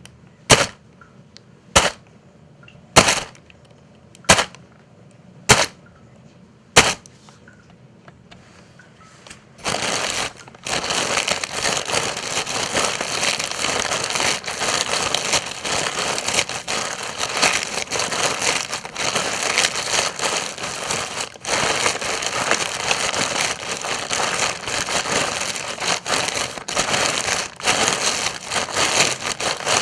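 Footsteps crunching on dry leaves: six single, sharp steps about a second and a quarter apart, then a short pause. From about ten seconds in, a dense, continuous crackling and rustling of dry leaves.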